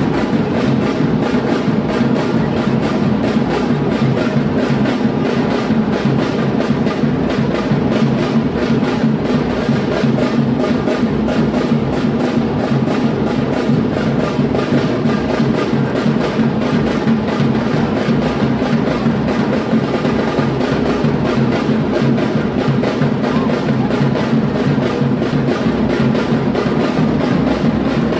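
Batucada: a samba-style percussion ensemble drumming a dense, steady rhythm without a break.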